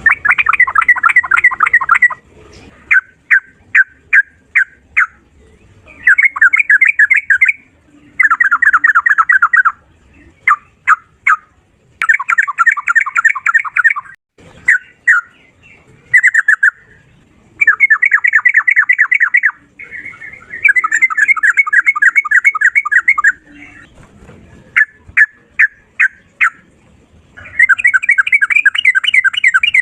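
Sooty-headed bulbul singing loudly in rapid-fire bursts of quick notes, each burst lasting one to two seconds, with runs of single sharp notes between them.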